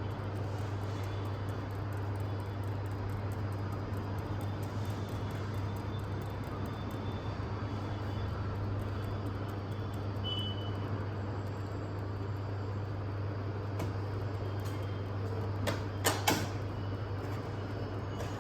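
Steady low hum over background noise, with a couple of sharp clicks close together about sixteen seconds in.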